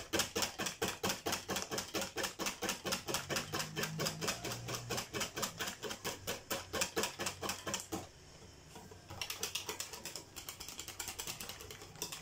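Wire hand whisk beating crêpe batter in a mixing bowl, clicking rhythmically against the sides about five or six strokes a second, to whisk out the lumps. It pauses for about a second two-thirds of the way in, then resumes more softly.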